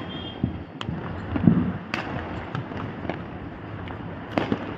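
Fireworks going off: a scattered series of sharp cracks and pops at irregular intervals. The loudest, about a second and a half in, carries a low boom.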